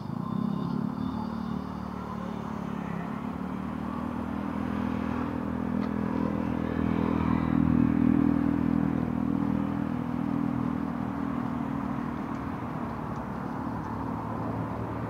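Road traffic: a vehicle engine drone that swells to its loudest about halfway through, then eases, over general street noise.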